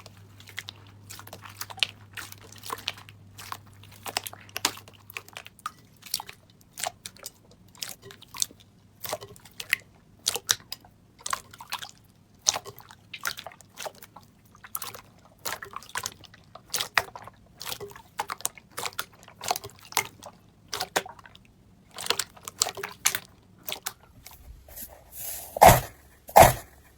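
Slime being squeezed and pressed by hand, giving a steady run of short crackling pops and clicks, a few each second. Near the end, louder and deeper squishing strokes take over.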